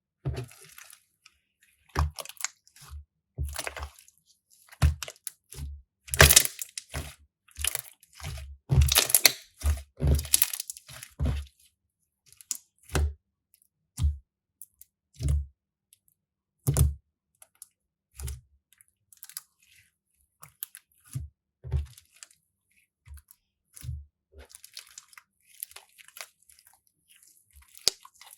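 Crunchy slime being pressed and handled, giving irregular crackling and popping strokes, each with a soft low thud. The crackles come thickest about a third of the way through, then thin out to scattered pops.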